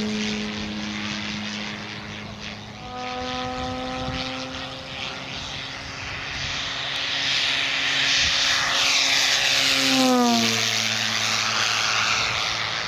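Giant-scale electric RC P-51D Mustang's 24x8 two-blade propeller, driven by a brushless electric motor with no sound generator fitted, making a pitched drone over a broad rushing noise. It grows louder as the plane passes low, and about ten seconds in the pitch drops sharply as it goes by.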